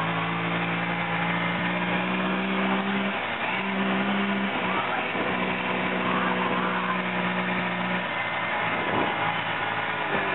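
Kawasaki Teryx 750 side-by-side's V-twin engine running hard at speed on a dirt trail, heard from on board. It holds a steady high note, with short dips in power about three and five seconds in, and eases off about eight seconds in.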